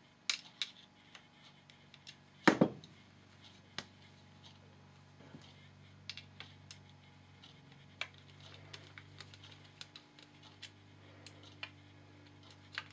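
Small metal clicks and taps of a screwdriver working the back strap screws on a steel and brass revolver frame, with a louder double knock about two and a half seconds in.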